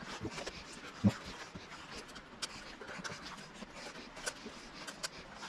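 Small clicks and scraping of plastic wiring-harness plugs being worked loose and unclipped from the high-voltage battery's management units, with one louder knock about a second in.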